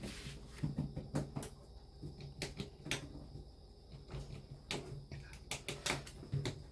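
Scattered light clicks and knocks of small objects being handled and set down, over a faint steady hum.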